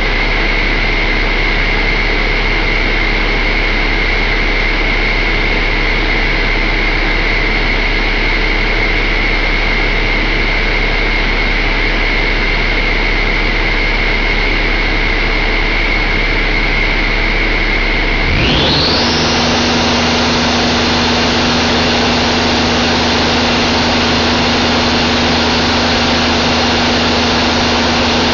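Cummins ISX15 inline-six diesel engine running steadily with a high whine over its low drone. About two thirds of the way through the engine speeds up: the whine sweeps sharply up to a much higher pitch and holds there at the higher speed.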